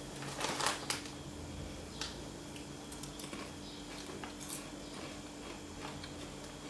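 Short sharp crackles of a foil potato-chip bag being handled as fingers dig in for chips, with crisp crunches of chewing; a cluster in the first second, then a few scattered clicks.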